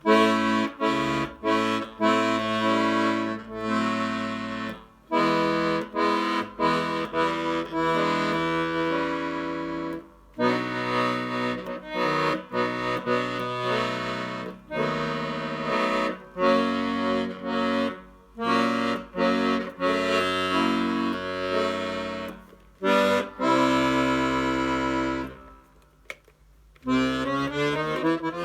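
Freshly repaired Hohner Student 72 piano accordion playing bass notes and chords on its left-hand buttons. Held reed chords of a second or two with short breaks between them, a longer pause near the end, then it starts again.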